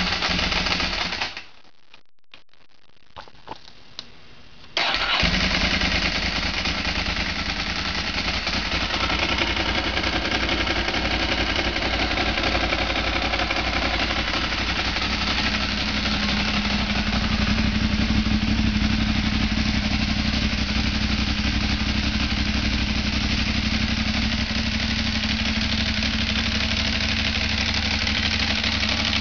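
Ducati 749's L-twin engine cold-started: after a brief first burst of sound and a few seconds of near quiet with faint clicks, the engine catches about five seconds in and runs at a steady idle.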